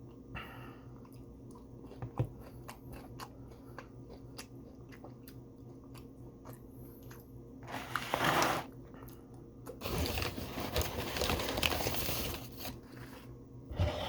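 Close-miked eating sounds from fast food: small mouth clicks and chewing. A short crunching burst comes about eight seconds in, then a louder, longer stretch of crunching from about ten to twelve and a half seconds.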